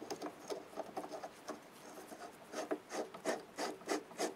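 A knurled nut being screwed by hand onto a freshly cut M16×1 thread, metal scraping and rubbing on the threads: faint at first, then short regular strokes about three a second from a little past halfway. It is a trial fit of the new thread.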